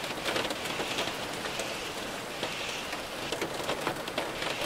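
Steady rain falling, an even hiss flecked with many small drop hits.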